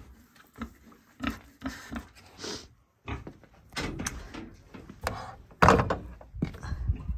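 Grunts from a pig at its feeder, then knocks and rattles of a wooden plank barn door being opened and shut, the loudest knock a little past the middle.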